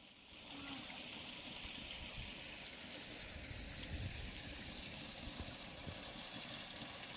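Spring water running steadily in an even hiss, with an uneven low rumble underneath.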